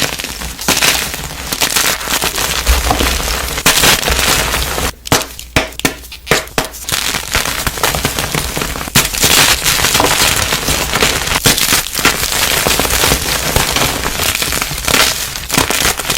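Chalk being crushed: a dense, continuous crunching and crackling, thinning to a few separate cracks for a couple of seconds about five seconds in.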